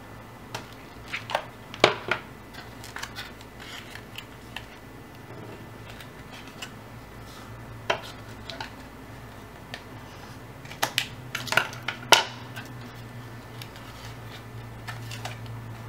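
Paper strips and a cardboard form being handled and pressed together with a hot glue gun, giving irregular light clicks and taps. The loudest come about two seconds in and again around eleven to twelve seconds in, over a low steady hum.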